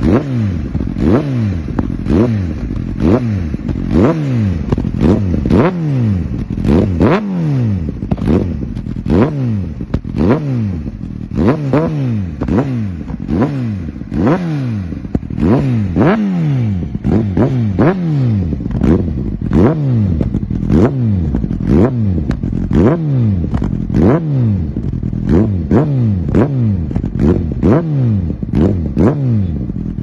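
Honda CBR600RR inline-four through an aftermarket GPR exhaust, revved in quick throttle blips over and over, a little more than one a second, each rising sharply and falling back. Pops and crackles come from the exhaust as the revs drop.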